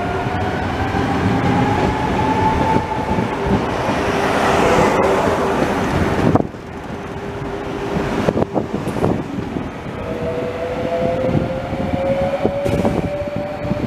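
CFL Series 2200 double-deck electric trains on the move: the traction motors' whine rises in pitch as the first unit accelerates past, over rolling wheel-on-rail noise. After an abrupt cut, a second unit comes on with wheel clicks and its motor whine rising again.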